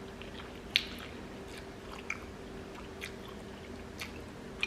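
Close-miked mouth sounds of someone chewing soft ramen noodles: quiet chewing broken by about five short, sharp wet smacks, the loudest about a second in.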